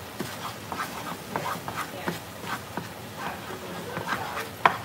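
Spatula scraping and stirring curry paste in a nonstick frying pan: a run of short, squeaky scrapes, with a sharp tap near the end.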